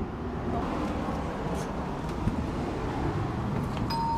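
Steady outdoor background noise, a low rumble like distant road traffic. A couple of steady high tones start just before the end.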